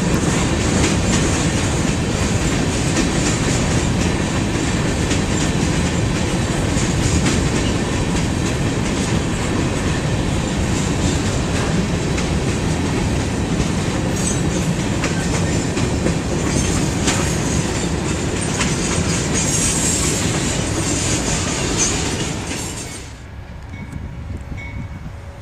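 Freight cars (covered hoppers, a centerbeam flatcar, tank cars) rolling past close by: a steady, loud rumble of wheels on rail with clickety-clack over the rail joints. Near the end the sound drops sharply to a much quieter, distant rumble.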